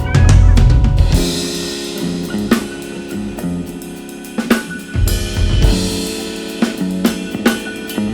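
Live band music led by a drum kit with Soultone cymbals: bass drum, snare and hi-hat hits over held pitched notes from the other instruments, with loud crash-cymbal washes about a second in and again around five seconds in.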